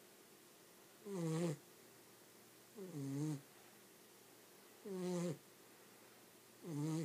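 Miniature dachshund snoring in its sleep: four pitched snores, each about half a second long, coming about every two seconds.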